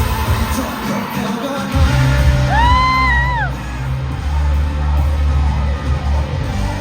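Live indie pop-rock band playing over a concert PA, recorded from the crowd, with singing. Heavy bass and drums come in strongly about two seconds in, and a single held high vocal note rises and falls about three seconds in.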